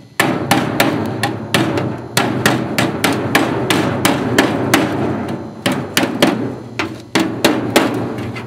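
A hammer tapping the freshly tack-welded sheet-steel patches of a VAZ-2121 Lada Niva's floor pan, about three quick blows a second, each ringing through the body metal. The seam is being knocked flush so the patch sits edge to edge with the floor before it is welded solid.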